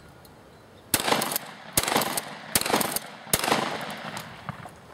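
Remington 870 pump-action shotgun being fired rapidly: four sharp bangs starting about a second in, each under a second apart and each trailing off in an echo.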